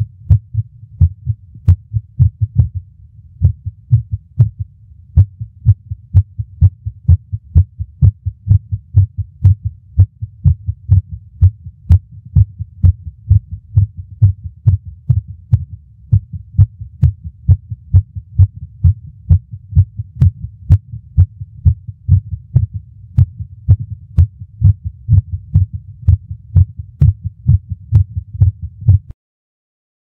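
Heart sounds, 'lub-dub' beats, in an irregular rhythm with premature ventricular contractions (extrasystoles): early beats break the pattern of an arrhythmic heartbeat. The beating stops about a second before the end.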